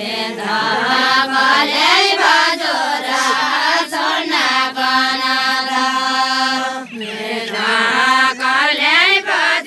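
Group of women singing a deuda folk song together without instruments. They sing in long held phrases on one melody line, with slow bends in pitch and short breaks between phrases.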